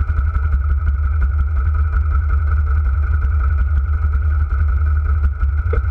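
A vehicle engine idling steadily: an even low rumble with a steady higher tone over it.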